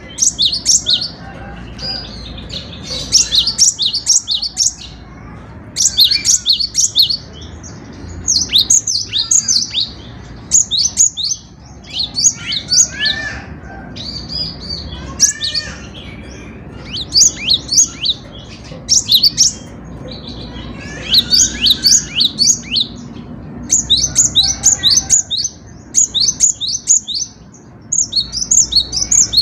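Cinereous tit (gelatik batu) singing loud, high bouts of rapid repeated notes, each bout about a second long, with short pauses of a second or two between bouts.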